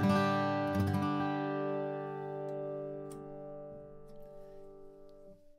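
Atkin Essential OM acoustic guitar strummed with a Hense Happy Turtle 1.2 mm pick: a few quick chord strums in the first second, then the last chord left to ring and fade away over about four seconds.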